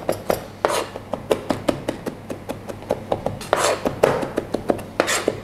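Chef's knife rough-chopping garlic on a plastic cutting board: a steady run of sharp blade taps on the board, several a second, broken by a few longer scraping strokes.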